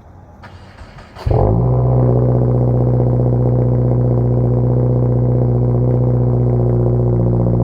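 Aftermarket air horn on a Toyota Camry sounding one long, steady, unbroken blast that starts suddenly about a second in.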